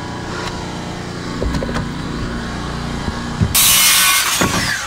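A power saw cutting through a wooden board for under a second near the end, its blade then winding down with a falling whine, over a steady low hum.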